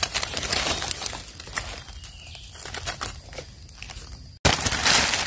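Dry fallen leaves rustling and crackling as a hand pulls a mushroom up from the leaf litter. The sound cuts out for an instant near the end, then comes back as louder crunching.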